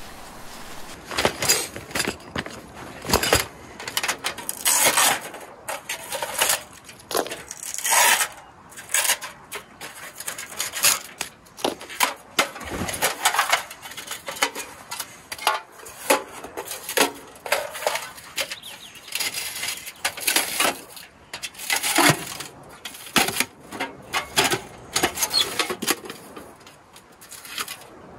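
Thin titanium panels of a Pomoly T1 Mini folding wood stove clinking and rattling as they are unfolded and slotted together: a run of irregular light metallic clicks and clatters.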